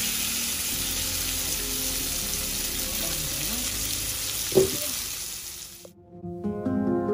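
Kingfish steaks sizzling as they fry in coconut oil on a tawa, with one sharp clink of the spatula against the pan about four and a half seconds in. The sizzling cuts off near the end and gentle plucked-string music begins.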